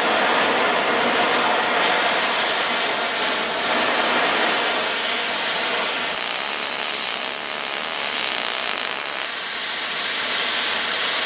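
Oxy-fuel cutting torch hissing steadily as its flame cuts through a steel pipe, easing briefly about seven seconds in.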